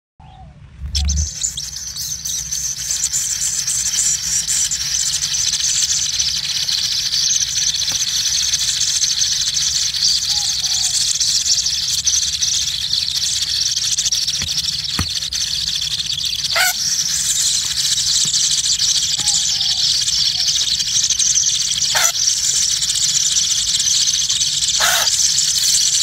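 Nestlings in a nest burrow begging in a continuous high-pitched, hiss-like chorus, with a few short sharp sounds standing out in the second half.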